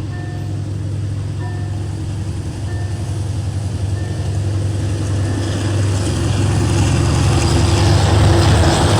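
GEA 4530 diesel-electric locomotive's engine drones and grows steadily louder as the freight train approaches. A level-crossing warning signal beeps about every 1.2 s, and in the last few seconds rising wheel and rail noise joins in.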